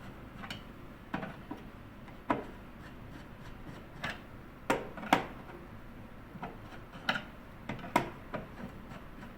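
Irregular light clicks and taps of a Phillips screwdriver tightening the screws on the refiner's motor cover, a dozen or so over several seconds, over a faint steady hum.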